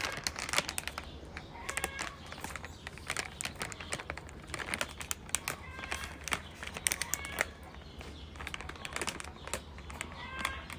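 Grass rustling and crackling in many quick, sharp bursts as two kittens wrestle in it, with a few brief high chirps now and then.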